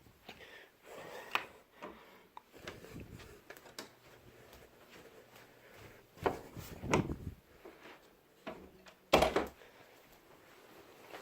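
Scattered light knocks and rubbing of objects being handled, with a few louder thumps about six, seven and nine seconds in.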